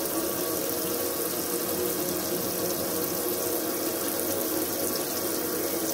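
Kitchen tap running steadily into a stainless steel sink while rice is rinsed in a steel bowl.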